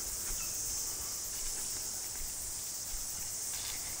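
A steady, high-pitched chorus of insects buzzing in the bush.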